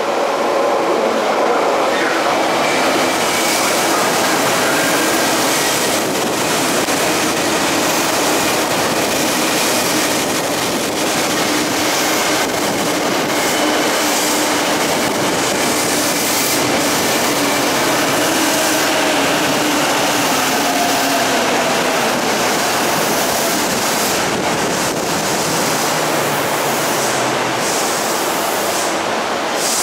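Eidan 7000-series subway train rolling into the platform at low speed: steady wheel and rail noise with a motor whine whose pitch glides downward as the train slows.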